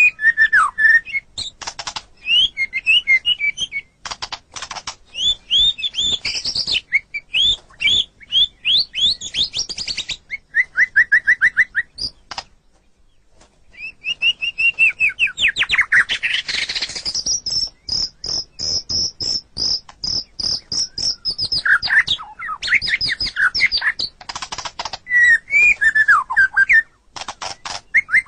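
White-rumped shama (murai batu) singing a fast, varied song of whistled glides, rapid trills and harsh clicking chatter. The song breaks off briefly about halfway through.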